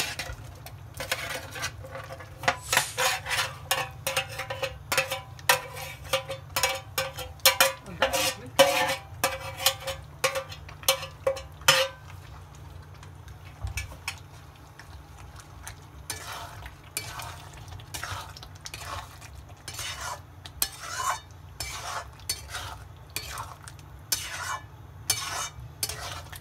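Metal spatula scraping and clinking against a metal wok as chicken pieces are stirred into thick gravy. Through the first half the strokes come quickly, with a ringing note under them. They pause for a few seconds near the middle, then start again more spaced out.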